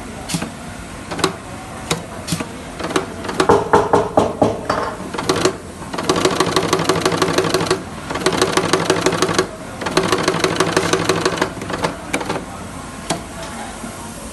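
Industrial three-needle chain stitch sewing machine stitching in short runs, with a rapid even rattle of needle strokes. Scattered clicks and an uneven burst come first, then three runs of about one to two seconds each with brief pauses between them.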